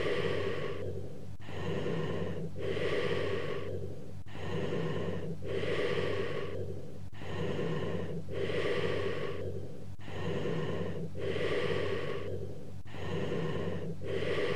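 Cavernous bronchial breath sounds over a lung cavity: low-pitched breaths about every three seconds, each with a short inspiration, a gap, then a longer, prolonged expiration, about five breaths in all.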